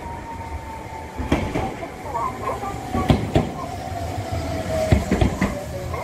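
Kagoshima City Tram car 1017 approaching and running past over ballasted track, its wheels clacking over rail joints in a slow clickety-clack, about five knocks, with a steady tone that slowly falls in pitch.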